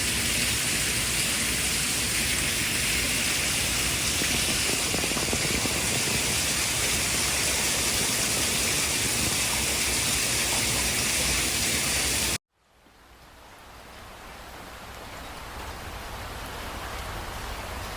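Steady, loud white noise of the kind played for a baby's sleep. About twelve seconds in it cuts out abruptly, and a softer, duller noise fades back in.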